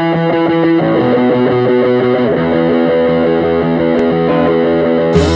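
Rock song intro: a distorted electric guitar run through effects plays held chords that change every second or so. Near the end a fuller, heavier part with deep bass comes in.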